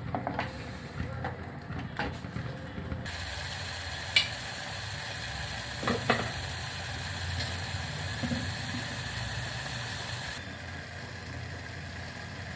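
Thick tomato masala in a steel pot, first stirred with a wooden spatula that scrapes and knocks against the pot, then bubbling and sizzling with a steady hiss and a few pops as it comes to the boil.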